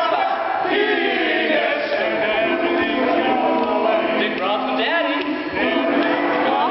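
All-male a cappella group singing in harmony, voices only, with several held notes and some sliding notes.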